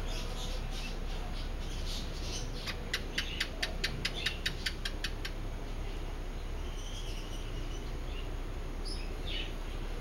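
A rapid, even series of about a dozen sharp chirps, about five a second, lasting about two and a half seconds, with a few faint high chirps afterwards, over a steady low hum.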